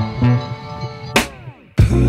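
Background music with a drum beat. A little past a second in, the music slides down in pitch and cuts out for a moment, then the beat comes back.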